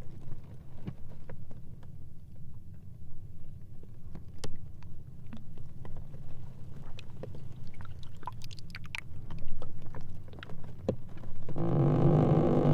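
Sea ice floes grinding against each other: a steady low rumble with scattered cracks and ticks. Near the end it turns into a loud droning groan, a rubbing squeal with several tones at once.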